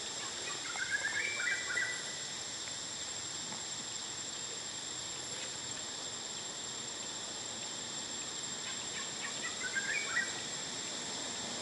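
A steady, high insect drone, with two short runs of chirping calls: one near the start and one about nine seconds in.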